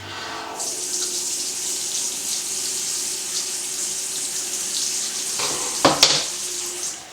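Water running from a wash basin pillar tap into the basin, a steady hiss that starts about half a second in and stops just before the end. A couple of sharp knocks come about six seconds in.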